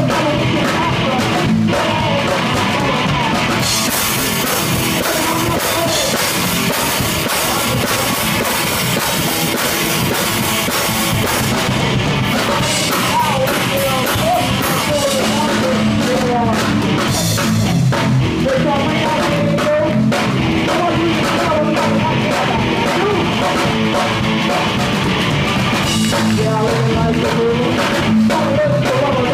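Live rock band playing: sung vocals over guitar and a drum kit, with the cymbals loudest from about four to twelve seconds in.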